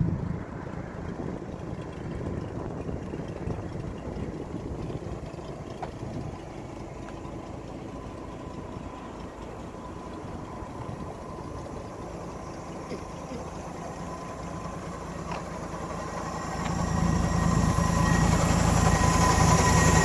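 1967 Chevrolet C10's inline-six engine idling steadily, faint at first and much louder near the end, where the steady low hum of the idle comes through plainly.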